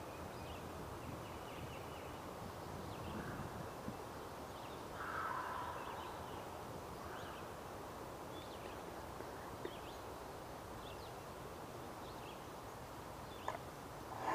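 Woodland ambience: small birds chirping faintly throughout, with a few louder, longer calls from a larger bird in the distance, the strongest about five seconds in. A single click near the end.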